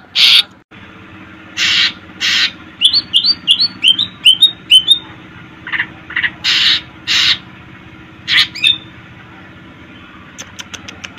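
Green leafbird (cucak ijo) singing: loud, harsh rasping notes, then a quick run of about eight sharp, clipped chirps, then more rasping notes. The song falls to a few faint ticks near the end.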